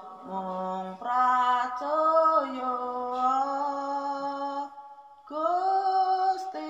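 A slow hymn sung in long held notes. It breaks off briefly about a second in, and again around five seconds in.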